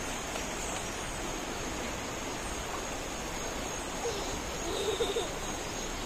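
Steady rushing of a shallow river flowing over stones.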